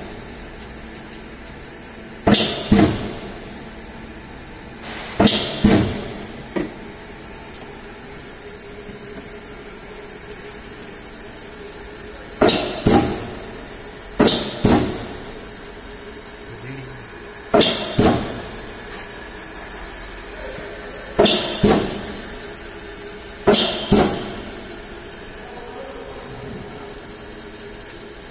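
Yamada Dobby A-30H 30-ton high-speed stamping press cycling seven times at uneven intervals, each cycle a pair of sharp metallic clanks about half a second apart, over the steady hum of the running machine.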